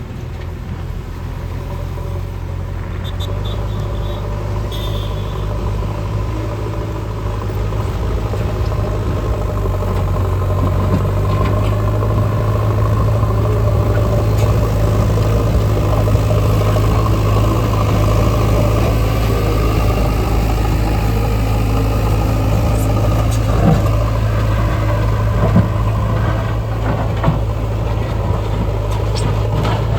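Diesel engine of heavy road-construction machinery running steadily with a deep, even note, growing louder over the first ten seconds or so and then holding. A couple of short knocks come in the second half.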